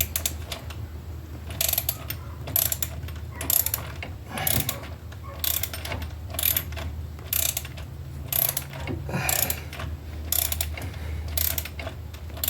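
Battery-powered cordless ratchet driving a wheel hub assembly's mounting bolt in, a steady motor hum with sharp ratcheting clicks about once a second.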